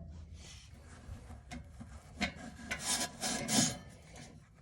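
Handling noise: several short rasping scrapes and rubs of hard parts being worked by hand, the loudest a few seconds in.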